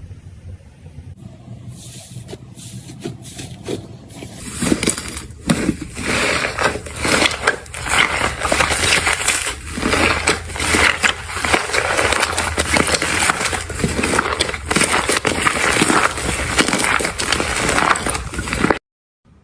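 Crunchy slime being squeezed and worked by hand: sparse crackles at first, building after a few seconds into dense, continuous crackling and popping, then cut off suddenly near the end.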